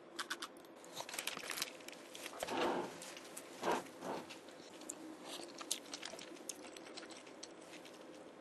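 Close-up eating sounds: small clicks and taps of utensils and food, with two brief rustles about two and a half and four seconds in.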